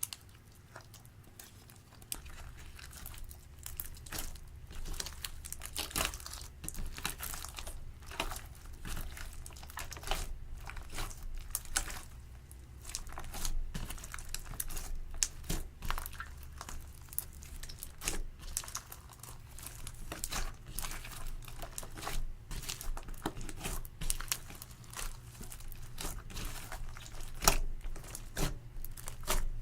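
Hands working clear slime mixed with eyeshadow and glitter: an irregular run of small crackling clicks and pops as it is squeezed and stretched, with one louder pop near the end.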